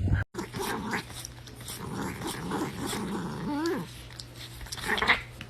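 A dog growling and grumbling in wavering, drawn-out vocal sounds that end with a short rising and falling note, followed by a few sharp clicks near the end.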